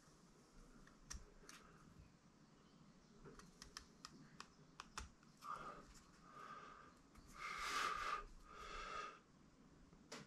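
Light clicks from handling a small plastic camera mount, then four short scraping strokes as a hand tool works the plastic; the third stroke is the loudest.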